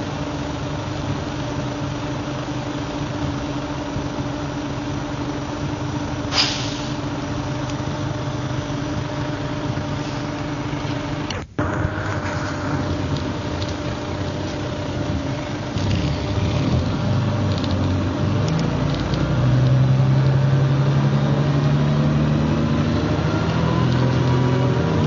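MCW Metrobus double-decker's diesel engine heard from on board, running steadily at first. From about two-thirds of the way through, the engine note climbs and grows louder as the bus accelerates, with a short hiss about six seconds in and a momentary break in the sound near the middle.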